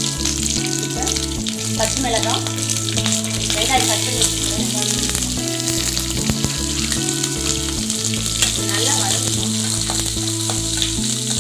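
Curry leaves, green chillies and whole spices sizzling steadily in hot oil in a stainless steel kadai. Chopped onions go in, and near the end a steel spatula stirs them, scraping against the pan under the sizzle.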